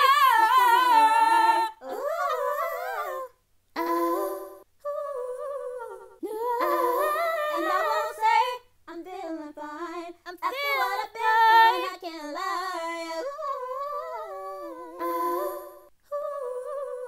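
A woman singing unaccompanied, in vocal runs and held notes with wavering pitch. She sings several phrases with short breaths between them, and there is no instrumental backing.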